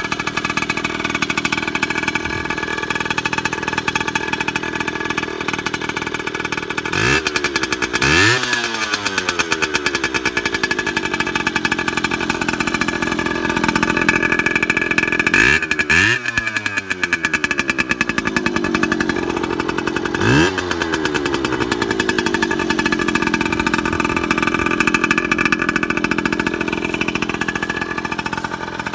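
1975 Suzuki TS75 Colt's small two-stroke single-cylinder engine idling, blipped three times: the revs rise and fall back about seven, fifteen and twenty seconds in.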